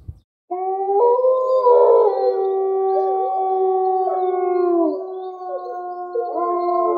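A chorus of canid howls: several long, overlapping howls held at different pitches, starting about half a second in. One howl slides down and drops out near the middle, and new howls rise a little after six seconds.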